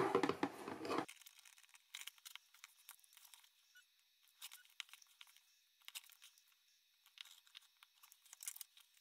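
Stabilizer and faux leather being pulled out of an embroidery hoop: a short crinkly tearing rustle in the first second. Then faint ticks and rustles as a quilting ruler is laid on, with a brief rotary-cutter cut near the end.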